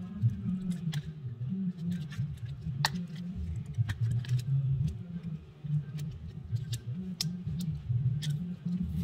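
Scattered small sharp clicks and taps of plastic and metal as a Samsung A04 phone is taken apart with a small screwdriver. They sound over a steady low rumble in the background.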